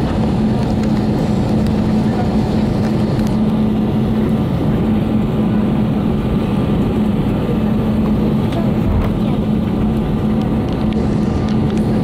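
Airbus A320 cabin noise while taxiing after landing: the jet engines at low power and the airflow make a steady rumble with a constant low hum.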